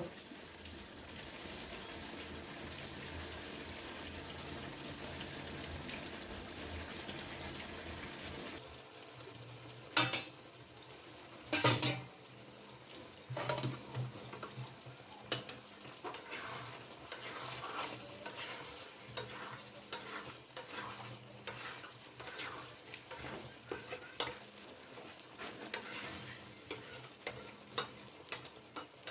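Chicken with fried potatoes sizzling in oil and spice masala in a pan during the kosha (slow-frying) stage. A steady sizzle gives way, about a third of the way in, to a spatula repeatedly scraping and knocking against the pan, about once or twice a second, with two louder knocks soon after the change.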